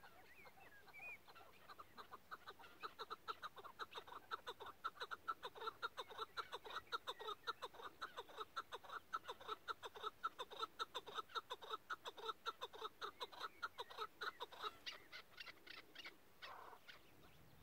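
Chukar partridge calling: a long, rapid run of repeated chuckling notes, several a second, starting about two seconds in and breaking off near the end with a few quicker notes.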